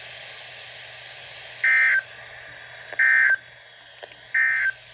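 EAS Specific Area Message Encoding (SAME) end-of-message data bursts: three short, loud, buzzy two-tone digital squawks about a second apart. They signal the end of the emergency alert broadcast.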